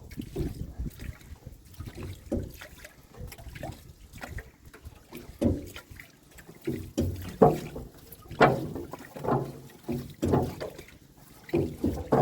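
Water splashing and sloshing in irregular bursts, louder from about halfway through.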